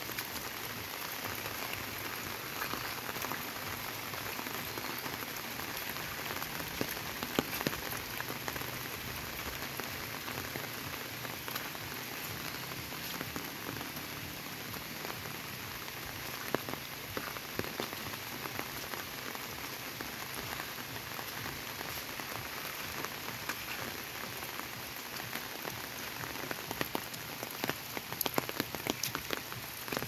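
Steady rain falling on foliage and a wet dirt path, with scattered louder taps that come more often near the end.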